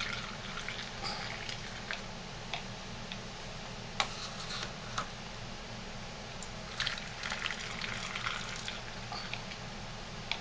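Thick homemade shea butter lotion being poured from a plastic container into small jars: soft liquid pouring sounds, with scattered short ticks where the container and jars touch, over a steady low background hum.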